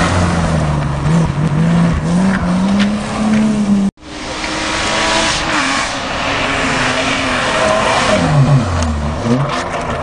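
Rally car engine running hard on a closed stage, its pitch rising and falling with throttle and gear changes. The sound cuts out abruptly for an instant about four seconds in, then an engine builds again as a car approaches, its revs dropping and climbing sharply near the end.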